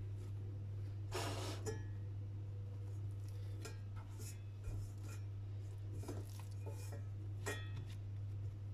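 Hands rubbing and scraping inside a stainless steel pot, with a longer rasping scrape about a second in. Then come several short scrapes and light knocks as a ball of bread dough is set in the pot and pressed into shape. A steady low hum sits underneath throughout.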